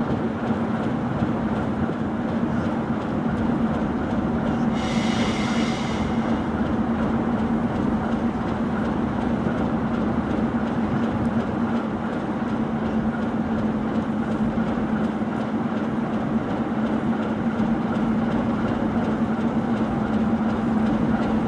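ChS2 electric locomotive standing with its train at the platform, running with a steady, even hum. A brief high-pitched sound, lasting about a second, comes about five seconds in.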